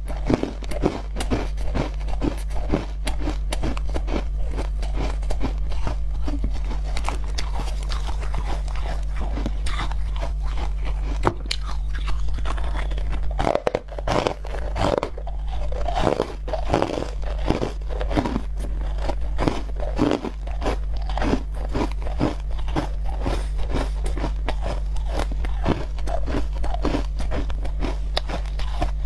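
A person biting and chewing frozen ice bites close to the microphone: a dense, irregular run of crisp crunches, over a steady low hum.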